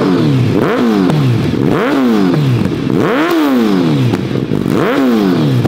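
Suzuki Hayabusa Gen 3's inline-four engine revved through an Akrapovic full exhaust system: about four sharp throttle blips, each rising in pitch and falling back to idle, the longest one about three seconds in.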